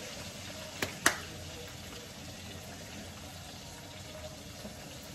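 Chicken frying in a pan on the stove, a steady sizzle, with two sharp clicks about a second in.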